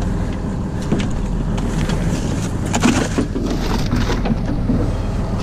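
Steady low rumble of the boat, with knocks, rustles and a crunch of ice as a cod is handled and put into a bucket of ice, the loudest knocks about three seconds in.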